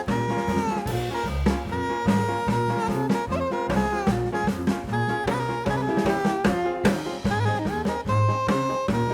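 Upbeat jazzy background music with saxophone or brass lead lines over a steady drum-kit and bass beat.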